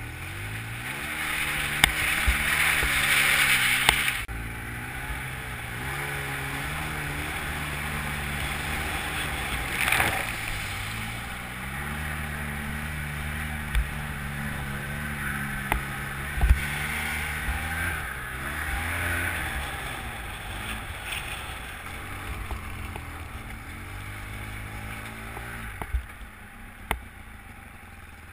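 Polaris Sportsman ATV engine running under way, its pitch rising and falling with the throttle, and dropping away near the end. A loud rushing noise dominates the first few seconds, and a few sharp knocks are scattered through.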